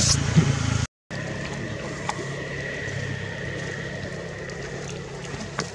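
Steady outdoor background hum with a faint high whine and scattered small clicks. The sound cuts out completely for a moment about a second in.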